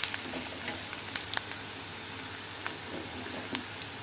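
Chopped onion, green chillies and curry leaves sizzling steadily in hot oil in a non-stick kadhai as they are sautéed, with a few light clicks of the spatula stirring.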